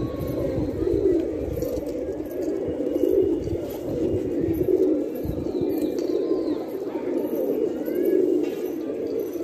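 A flock of domestic pigeons cooing together in steady, overlapping calls, with a few faint high chirps mixed in.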